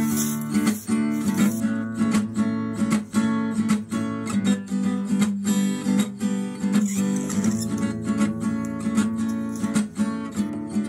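Background music of a strummed acoustic guitar, with a steady run of chord strums.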